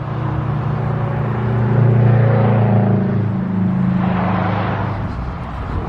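A passing motor vehicle, its engine drone swelling to a peak about two seconds in and then slowly fading away.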